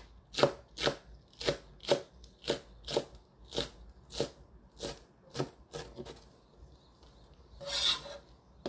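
Kitchen knife slicing green onion on a cutting board: a steady run of sharp knocks about two a second for some six seconds. Then a brief scraping sound just before the end, as the blade gathers the sliced onion.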